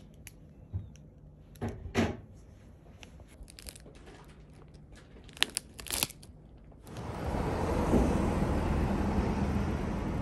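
Foil-lined plastic snack pouch crinkling and being torn open, with a few sharp crackles. About seven seconds in it gives way abruptly to steady, louder city street noise.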